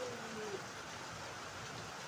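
Steady rain falling, an even hiss. A short pitched call wavers through it in the first half second.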